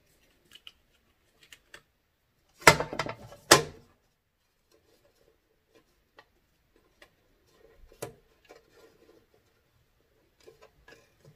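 Large plastic plates of a Giffin Grip trimming attachment clattering as they are handled, with two loud bursts of knocking close together a few seconds in. After that, only faint clicks and light rubbing as the parts are fitted by hand.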